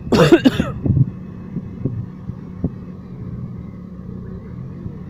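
Sports car engine idling steadily, with a brief loud burst of a man's voice in the first second.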